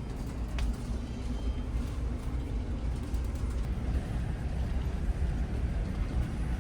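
Steady low drone of a ferry's engines heard from inside the ship, with one light click about half a second in.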